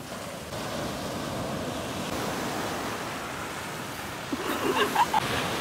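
Ocean surf washing in along the shore, a steady rushing noise; a brief voice comes in near the end.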